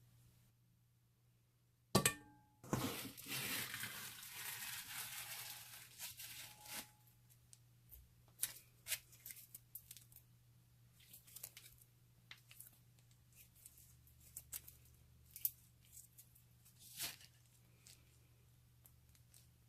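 Packaging being opened by hand: two sharp clicks about two seconds in, then several seconds of tearing and crinkling, followed by scattered small clicks and handling sounds.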